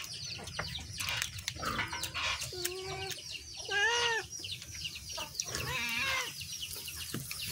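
Chickens clucking, with many short high calls and one louder, longer call about four seconds in.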